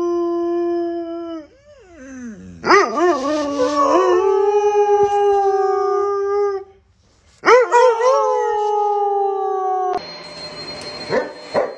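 A black-and-tan shepherd-type dog howling: three long howls, the first already under way, the later two opening with a wavering, yodelling rise before they hold a steady, slightly falling pitch. Near the end the howling gives way to a quieter steady hiss with a thin high whine and a few short sounds.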